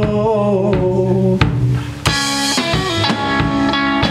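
Band music with guitar, bass guitar and drum kit; after a brief dip, a fuller, brighter section comes in suddenly about two seconds in.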